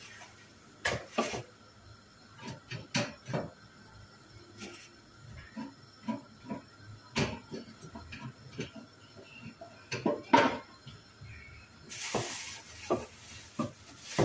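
Scattered light knocks and clicks of kitchenware and food being handled at a counter, with one sharper knock about ten seconds in. A crinkly plastic rustle starts near the end.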